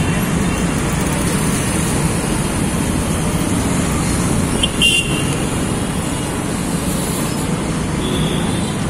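Auto-rickshaw engine running with street traffic around it while riding, and a short horn toot about five seconds in.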